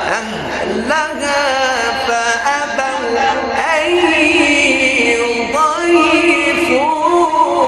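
A male Quran reciter chanting in the melodic mujawwad style, drawing out long ornamented notes that slide and waver between pitches.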